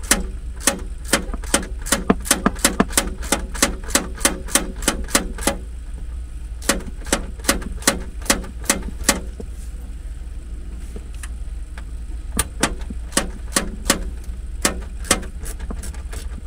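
Hand ratchet clicking in quick, even runs of about four to five clicks a second as a mounting bolt is backed out. There are short pauses about five seconds in and again near the middle, over a steady low hum.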